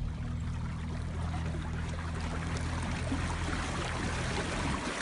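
A small boat's motor running with a steady low hum over rushing, splashing water; the hum cuts off near the end, leaving the water.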